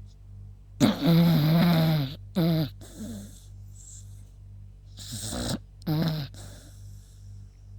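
Beagle snoring in its sleep: one long, loud, wavering snore about a second in, followed by two short snorts, then two more short snores about five and six seconds in.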